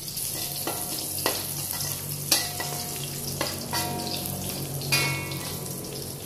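Sliced garlic sizzling steadily in a little oil in a metal wok. A metal spatula scrapes and knocks against the pan about half a dozen times, and each knock leaves a brief metallic ring.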